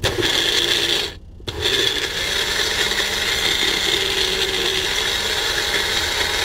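Personal blender motor running as its cup is pressed down onto the base, whirring the mixture. It cuts out briefly about a second in and then starts again and keeps going.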